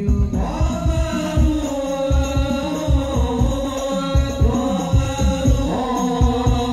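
Hadrah ensemble playing through a PA: a male voice comes in about a third of a second in, then several men sing a devotional chant over a steady run of low frame-drum beats.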